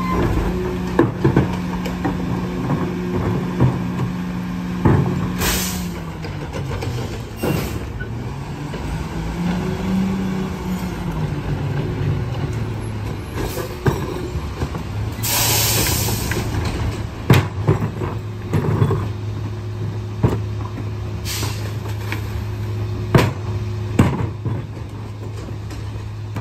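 McNeilus rear-loader garbage truck running at the curb: its engine drops in pitch about six seconds in, rises and falls again around ten seconds, then settles to a lower idle. Short hisses of air four times, the longest in the middle, and knocks of carts and trash banging against the hopper.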